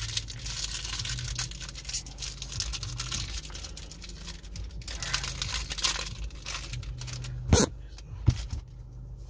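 Foil wrapper of a Pokémon booster pack being torn open and crinkled in the hands, a dense papery crackle, with two sharp clicks near the end.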